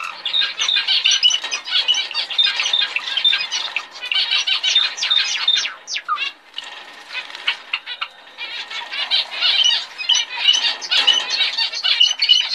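Cage finches twittering and chirping in quick, high calls almost without pause, thinning out for a couple of seconds a little past the middle.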